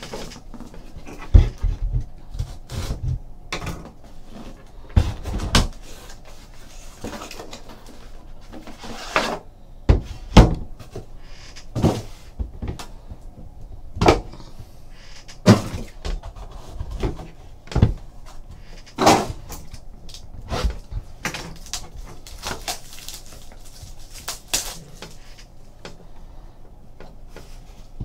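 Hands handling and opening a metal Upper Deck Exquisite Basketball box tin on a tabletop: a long irregular series of sharp knocks, taps and clicks, with a few heavier thuds against the table in the first half.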